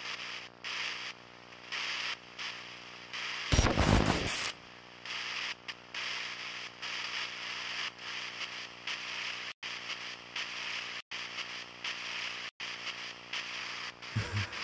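Dark, distorted drone-style teaser soundtrack: a steady droning tone under a pulsing hiss, with one loud harsh hit about four seconds in and three abrupt dead cuts about a second and a half apart near the end.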